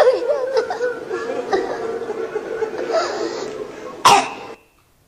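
A boy reciting a Shi'ite mourning lament into a microphone breaks down weeping, sobbing and wailing over a steady held note. A sharp, loud cry comes about four seconds in, then the sound cuts off abruptly.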